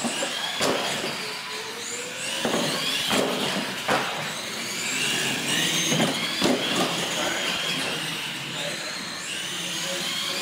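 R/C monster trucks racing on a concrete floor: the electric motors whine high, rising and falling with the throttle, over tyre noise, with a few sharp thumps as the trucks hit the ramps and land.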